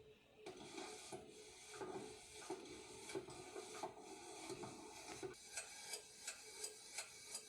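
Faint mechanical rubbing and scraping with sharp clicks, turning near the end into a regular click about three times a second.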